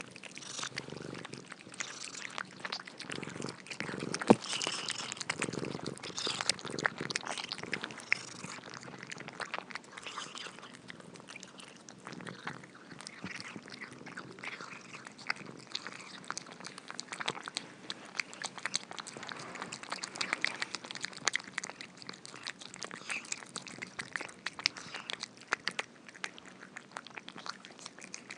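Cats eating: a dense, irregular patter of small crunches and mouth clicks as they chew, with one sharper click about four seconds in.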